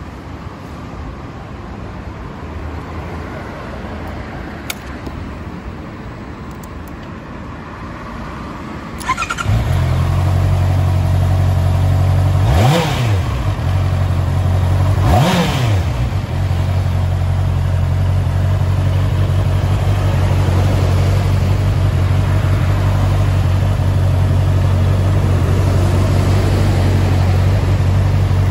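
Honda CBR650R's inline-four engine cranked on the starter about a third of the way in, catching at once and settling into a steady idle. A few seconds later it is blipped twice, each rev rising and falling back quickly, then it idles evenly to the end.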